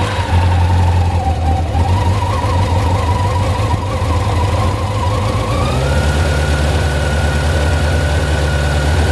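1987 Honda CBR600F Hurricane's inline-four engine running on choke just after a cold start, idling steadily. About six seconds in, the engine speed climbs a step and holds there.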